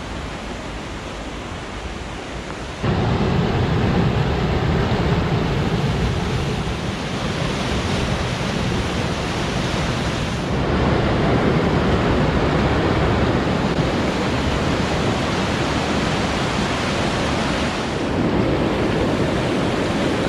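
Rushing floodwater roaring through a normally dry desert canyon wash after heavy rain: a steady rush that jumps louder about three seconds in and shifts in level twice more.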